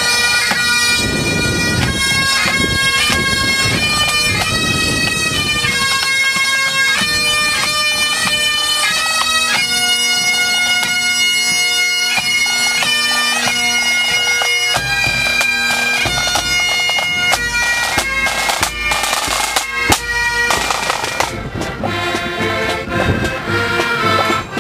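Pipe band playing a marching tune on Highland bagpipes, the melody moving note by note over the steady drone, with a bass drum and side drums.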